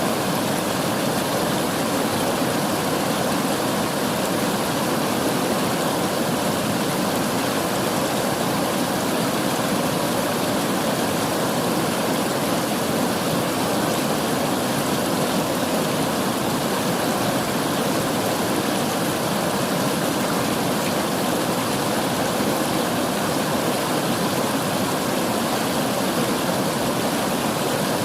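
River water flowing and rushing, a steady, even wash of sound without change.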